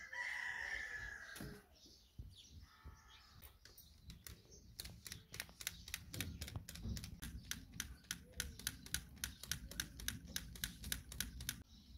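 Hand-held plastic fan being flapped at a clay stove's fire, a rapid even clacking of about four strokes a second over a low rush of air, starting about four seconds in and stopping just before the end. A short falling call opens it.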